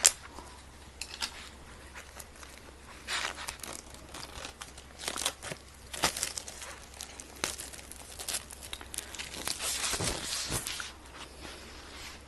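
Packaging of an Apple AirPods box being unwrapped: plastic wrap crinkling and tearing in irregular bursts, with a sharp click at the start and the loudest rustling near the end.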